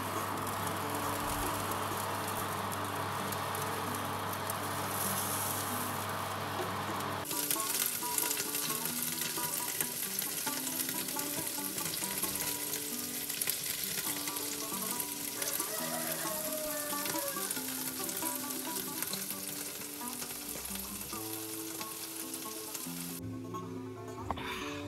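Chicken pieces sizzling and spitting fat on a tray under an oven grill's flame, a dense crackling hiss. About seven seconds in the sound changes abruptly from a steadier hiss with a low hum to sharper, more separate crackles.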